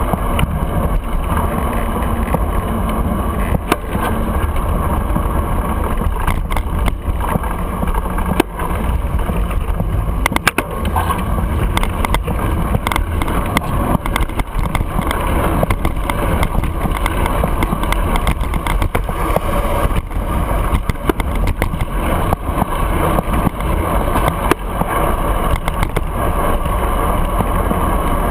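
Steady wind and road rumble from a camera mounted on a moving bicycle in city traffic, with frequent small clicks and knocks as the bike goes over the bumps of the street.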